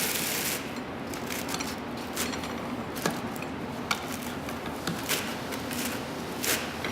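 Sandpaper loadings scraping and rustling as they are wound into the slots of a sanding-head casting with a steel bar, with scattered sharp clicks of paper and metal catching.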